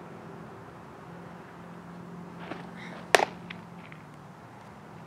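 A pitched softball smacking into the catcher's mitt: one sharp, loud pop about three seconds in, over a steady low hum.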